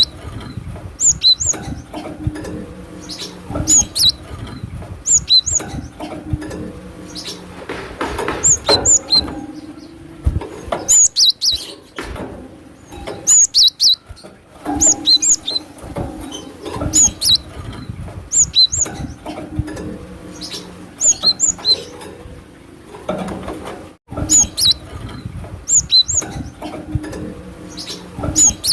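Cinereous tit (gelatik batu) calling in short, sharp, high notes in quick groups. It is a lure recording whose stretch of calls repeats about every twelve seconds.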